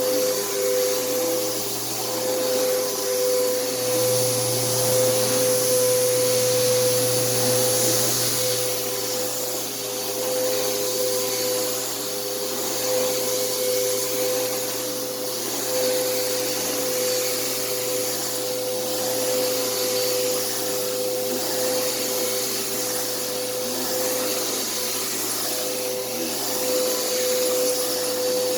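Upright vacuum cleaner running steadily over carpet, a constant motor whine with airflow hiss, its loudness swelling and dipping a little.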